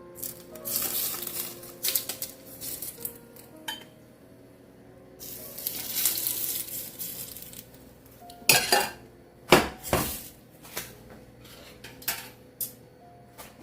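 Shallot and garlic sizzling in hot oil in two spells of about two seconds each, then a run of sharp clinks and knocks of a utensil against the pan and dishes, with soft background music.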